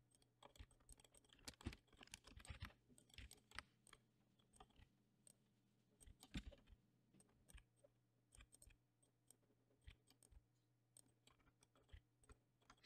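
Faint, irregular clicks of a computer keyboard and mouse, busiest in the first few seconds and sparser after, over a faint low hum.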